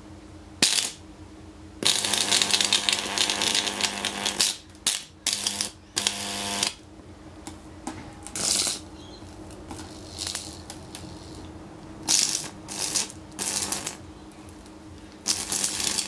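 High-voltage arc from a microwave oven transformer crackling and buzzing against an LCD TV panel in irregular bursts, the longest lasting over two seconds, as the arc burns through the panel. A steady low hum runs underneath between the bursts.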